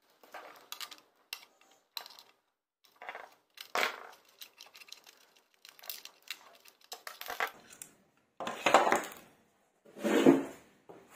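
Irregular clicks, taps and clatter of a plastic meter case and small metal parts being handled on a wooden tabletop while a panel galvanometer is taken apart. Louder knocks and scrapes come about two-thirds of the way through and again near the end.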